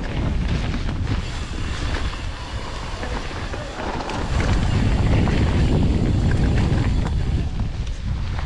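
Wind buffeting the action camera's microphone as a Santa Cruz Nomad mountain bike descends a dirt trail at speed, with tyres rolling over dirt and roots and the bike rattling over bumps. The noise swells louder a little past the middle.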